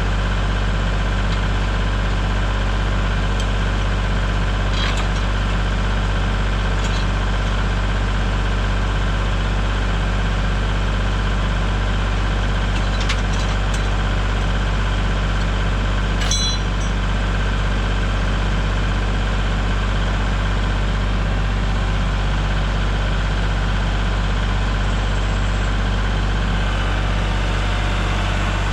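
Engine running steadily at a constant idle, with a few short clicks over it.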